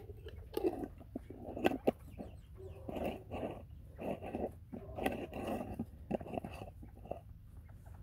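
A flock of northern bobwhite quail giving soft, repeated clucking calls while feeding, with a few sharp clicks about two seconds in.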